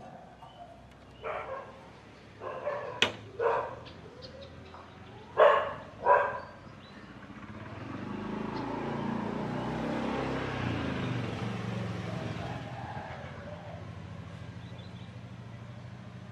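A dog barking several times in short, sharp barks. Then a motor vehicle's engine hum swells and slowly fades as it passes.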